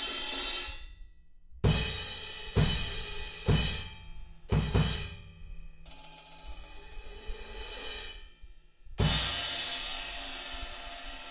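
Owl Dark crash cymbals struck on a drum kit. A ringing crash cuts off about a second in. Then come about five crash hits, each with the bass drum and roughly a second apart, and a quieter cymbal wash. About nine seconds in, a hard crash with kick rings out.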